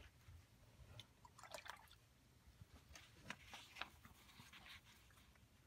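Faint wet swishing and light taps of a flat watercolour brush working paint in the mixing well of a metal palette, in short bursts about a second and a half in and again from about three to five seconds.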